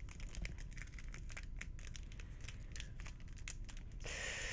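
Shiny foil trading-card booster pack crinkling and crackling in the hands, then a longer tearing sound near the end as the wrapper starts to rip open.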